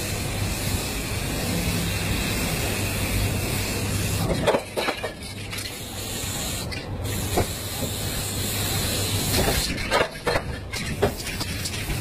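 Aerosol spray paint cans hissing in long bursts of spraying, with brief pauses and a few sharp clicks between bursts, over a steady low hum.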